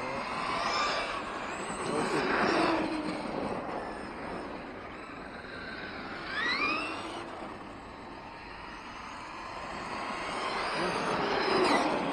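Electric radio-controlled trucks running on a dirt track. The motors whine and rise in pitch as they speed up and pass, loudest about two seconds in and again near the end.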